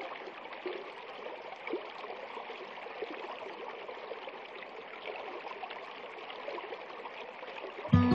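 Shallow stream running over stones: a steady rush and trickle of water with a few small splashes. Loud music with a plucked, steady beat cuts in abruptly right at the end.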